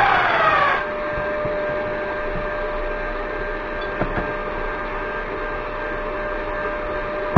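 Parkside mitre saw's motor winding down with a falling whine for under a second, then a steady hum with a small tick about four seconds in.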